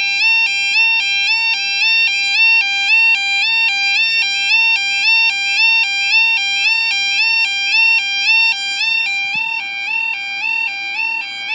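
Level crossing's new electronic audible warning alarm sounding continuously while the barriers are down, a loud two-tone alarm alternating steadily between a higher and a lower pitch.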